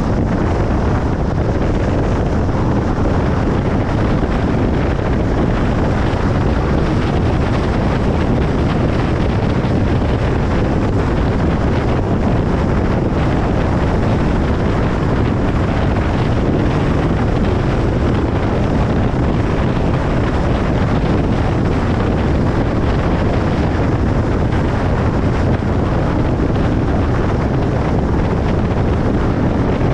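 Steady road noise of a car moving at highway speed: a constant rush of tyre and wind noise, heaviest in the low end, with no changes or events.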